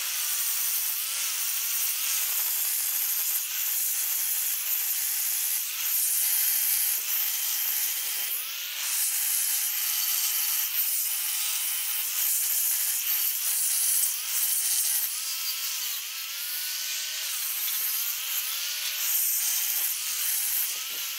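Electric angle grinder with a 60-grit flap disc running and sanding the steel top of a welding table, lightly smoothing it after rough grinding of weld buildup. The motor's whine repeatedly dips and recovers as the disc is pressed on and eased off the metal.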